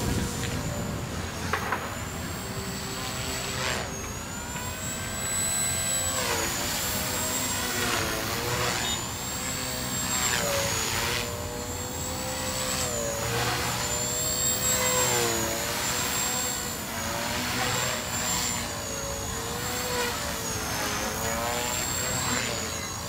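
Skyartec Wasp V4 electric RC helicopter in flight: the 4500kv brushless motor and rotor whine steadily, the pitch dipping and rising every couple of seconds as the rotor is loaded and unloaded in manoeuvres.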